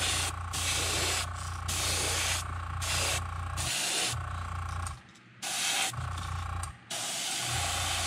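Airbrush spraying white base-coat paint onto a stenciled crankbait, a hiss of air and paint that starts and stops in short trigger pulls, about one burst a second, over a steady low hum.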